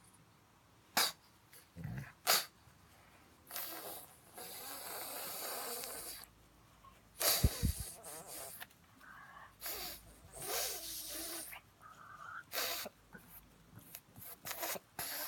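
A pug's noisy nasal sounds: several short, sharp sneeze-like blasts and longer raspy breaths, coming at irregular intervals.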